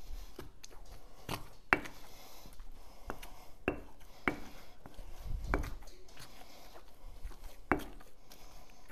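Wooden pestle working a thick potato, salt cod and garlic paste in a stone mortar: irregular knocks of wood against stone, roughly one every half second to second, with quieter stirring between as olive oil is worked into the mash.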